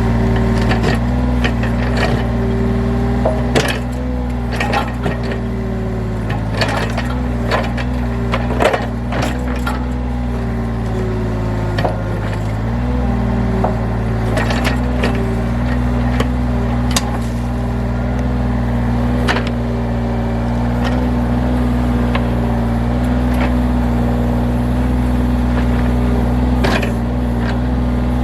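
John Deere 35G mini excavator's diesel engine running steadily under hydraulic load, its note shifting about twelve seconds in, with frequent sharp cracks and knocks as the bucket digs and tears at a fir stump and its roots.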